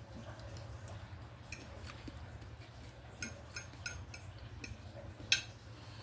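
Metal fork clicking and scraping against a plate of fried rice while eating, about ten light clinks spread out, the loudest near the end, over a low steady hum.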